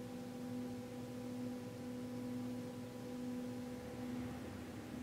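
Steady low hum made of a few held tones, the lowest one gently pulsing.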